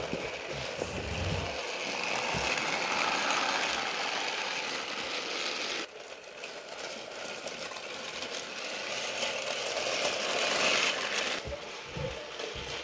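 Motorized Thomas & Friends toy engines whirring and rattling along plastic track. The steady whirr cuts out abruptly about halfway through, then picks up again.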